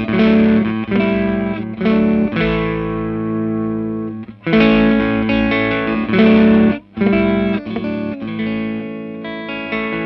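Electric guitar played through a BadCat Lynx 50 valve amp turned up into distortion: overdriven chords and riffs with plenty of gain, breaking off briefly twice.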